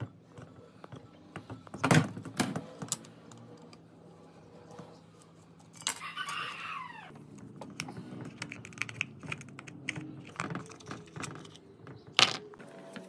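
Hand work on small metal parts: scattered sharp clicks and knocks with some rattling, and a short squeak falling in pitch about six seconds in.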